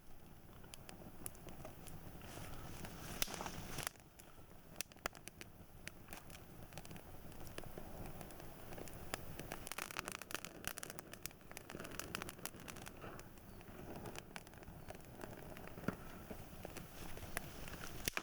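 Wood campfire crackling, with many scattered sharp pops.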